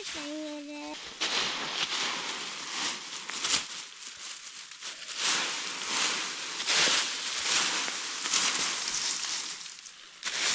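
Dry fallen leaves rustling and crunching in irregular bursts as they are scraped up and gathered by hand. A goat bleats briefly at the very start.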